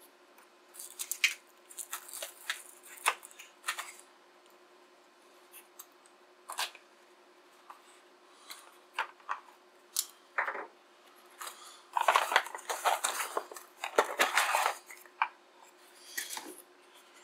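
Packaging being handled and pulled open by hand: scattered rustles, crinkles and sharp clicks, with a dense stretch of rustling and tearing in the last third. A faint steady hum runs underneath.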